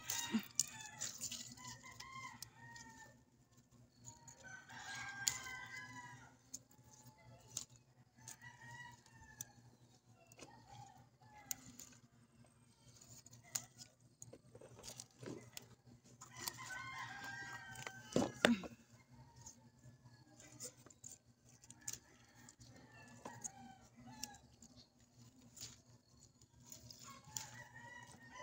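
Chickens clucking and a rooster crowing several times, each call about a second or two long, with a few scattered sharp clicks.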